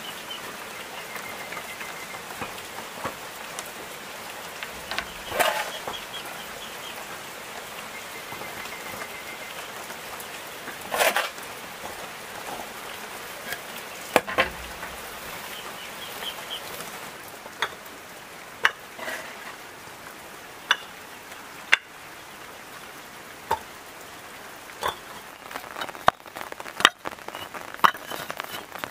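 A steady hiss with scattered sharp knocks and clicks, two louder knocks in the middle and the clicks coming more often near the end.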